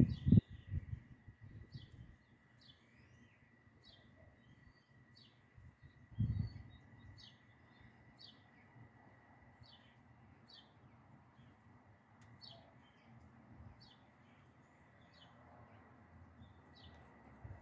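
A bird repeating a short high chirp about once a second, over a faint steady high-pitched tone. A brief low rumble comes at the start and again about six seconds in.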